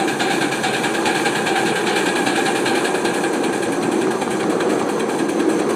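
Coal-fired 1½-inch-scale live steam locomotive working up a grade under throttle: a rapid, steady beat of exhaust chuffs from the stack.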